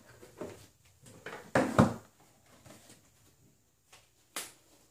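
Cardboard game boxes being handled on a bookshelf: a few knocks and rustling scrapes, the loudest a little under two seconds in and another short knock near the end.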